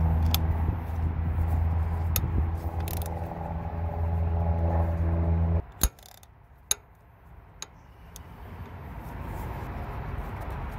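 A steady low mechanical hum at one unchanging pitch runs for about five and a half seconds and cuts off abruptly. After it come three separate sharp metallic clicks as a socket wrench is worked on a timing-cover bolt.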